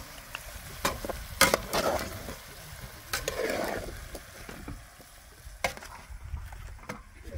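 Food being stirred and frying in a pan, with light sizzling, a few sharp knocks of a utensil and a short scrape about three seconds in.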